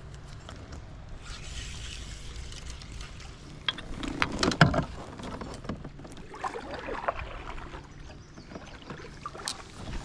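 Knocks and rattles of gear being handled in a paddle kayak, a cluster of them loudest about four and a half seconds in and more around seven seconds, over a steady low rumble.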